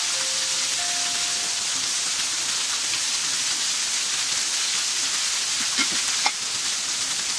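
Water pouring from a small waterfall and pipe spouts, splashing over bathers onto a concrete floor: a steady hiss. Two soft chime notes sound in the first couple of seconds, and there is a short knock about six seconds in.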